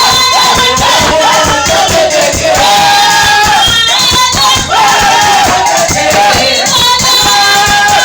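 Loud praise music: voices singing a wavering melody over busy, fast percussion with shakers.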